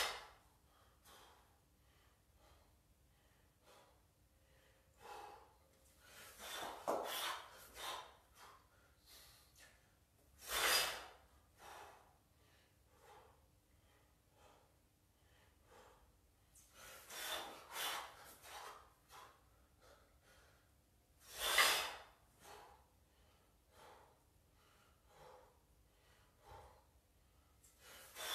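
A kettlebell lifter breathing hard during a set of double half-snatches. Loud, sharp exhalations come at the start, about eleven seconds in and about twenty-two seconds in, with clusters of quicker, shorter breaths between.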